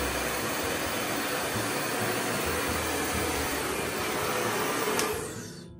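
Handheld hair blow dryer running steadily, switched off with a click about five seconds in and whirring down to a stop.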